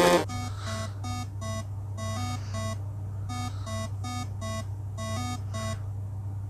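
Electronic beeping: short pitched beeps about two and a half a second, falling into groups of four with short pauses, over a steady low hum.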